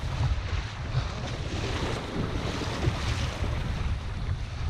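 Wind buffeting an action camera's microphone on a kayak at sea, a heavy fluttering rumble over the rushing wash of choppy ocean water.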